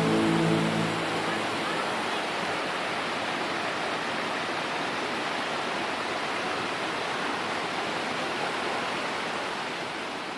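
Steady rush of a waterfall's falling water. The tail of background music fades out in the first second or so, and the water sound slowly dies away near the end.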